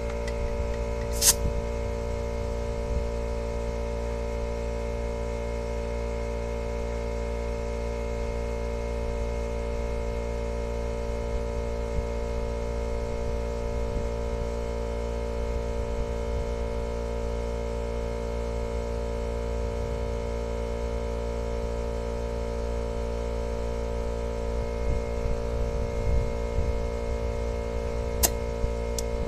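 Steady hum of a McGraw 8-gallon oil-free air compressor running while air is fed through a chuck into a tire valve stem, with barely any hiss from the valve, which the owner thinks is clogged. A sharp click about a second in as the chuck is pressed onto the valve, and a few clicks near the end.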